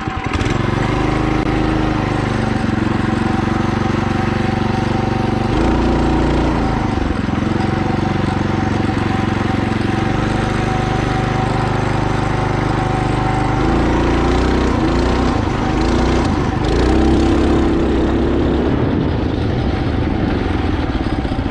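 Mini bike's small single-cylinder engine running under throttle through a torque-converter belt drive on a slow hill climb, its engine speed shifting up and down several times.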